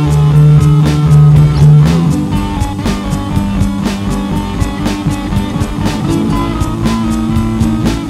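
Instrumental break in a rock song: guitar and a drum kit playing with no vocals. A held low note changes to a new chord about two seconds in.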